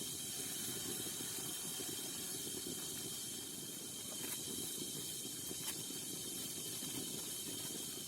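Night forest insects chirring in a dense, steady high chorus over a low rushing noise, with a few faint clicks.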